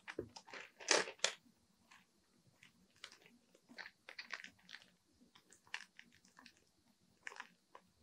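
Clear plastic wrapper around a notebook crinkling and crackling as it is handled, in irregular bursts, loudest about a second in.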